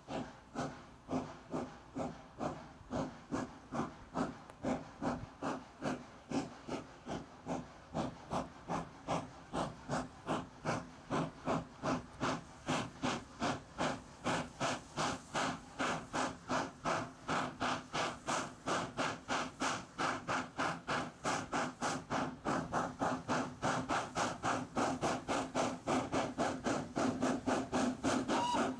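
Saddle tank steam locomotive chuffing steadily up a steep gradient under load, about three exhaust beats a second, growing louder as it draws near.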